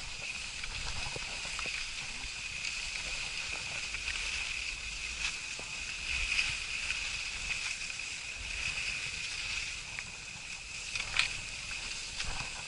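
Skis sliding over packed snow: a steady hissing scrape with scattered small clicks and knocks, and one sharper knock about eleven seconds in.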